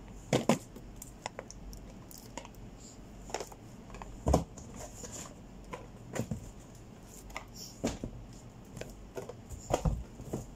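Irregular clicks, taps and knocks of boxed items being handled and set into a cardboard carton, with louder thumps about half a second in and just after four seconds.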